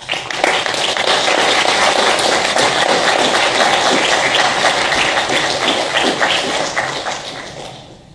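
Audience applauding: many hands clapping together. It starts suddenly, holds steady, and dies away near the end.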